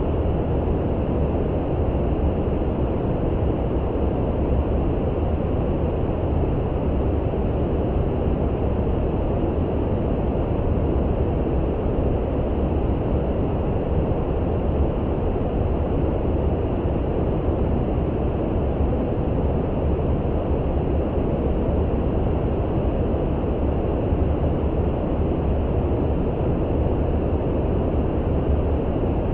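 Steady brown noise: an even, deep hiss with most of its weight in the low end and no changes or separate sounds.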